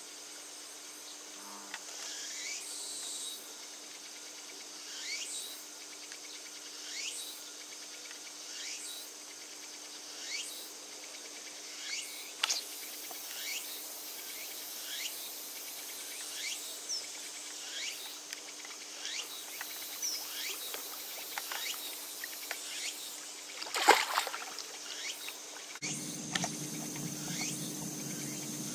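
Quiet outdoor ambience by a pond: faint high chirps sweeping downward roughly once a second over a steady low hum, with one sharp click about 24 seconds in. A louder low rumble comes in near the end.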